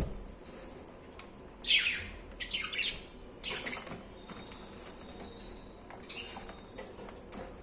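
Budgerigars calling: three loud, harsh squawks in quick succession about two seconds in, followed by fainter chirps.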